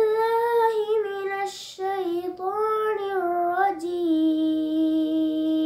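A boy chanting Quran recitation in a melodic voice, with pitch glides between phrases, a short breath a little under two seconds in, and a long held note from about four seconds in.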